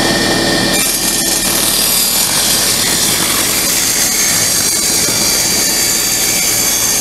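Table saw running and cutting a pine board as it is pushed along the fence. The motor hum holds steady, and about a second in a higher hiss joins it as the blade works through the wood.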